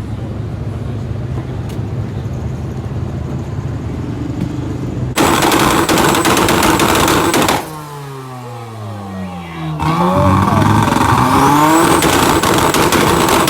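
Car engine under hard acceleration: a steady run, then a sudden loud burst of revs about five seconds in, a let-off near eight seconds with the engine note falling, and full throttle again with the pitch climbing.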